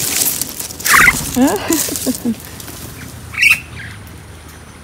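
Pet myna (Philippine "Martinez" bird) giving several harsh, squawking calls: a sharp call about a second in, a short run of calls just after, and another sharp call near the middle. A rustle comes at the very start.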